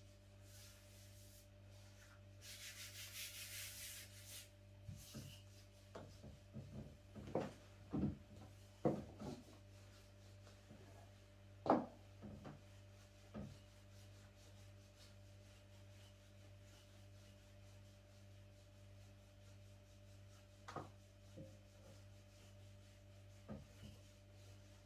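Hands working at a wooden table: a short rubbing, scraping sound, then a string of knocks and taps as things are handled and set down on the wood, the loudest a little before the middle and a few single taps later. A steady low hum runs underneath.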